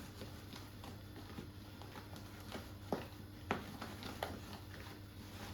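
Spoon stirring thick pancake batter in a square dish, with a few light clicks of the spoon against the dish, the loudest about three and a half seconds in, over a faint steady hum.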